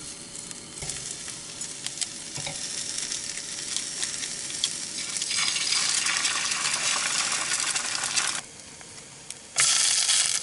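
Food frying in a skillet: English muffin halves sizzling, with small scattered clicks of handling. The sizzle swells about halfway through as an egg is cracked into the hot pan. Near the end it drops away for about a second and returns louder.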